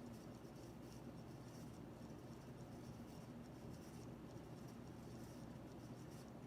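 Hunter Low Profile V hugger ceiling fan, a CEI-made unit dated 2003, running steadily and faintly: a low motor hum with a fine scratchy, ticking bearing noise over it, which the owner hears on all speeds.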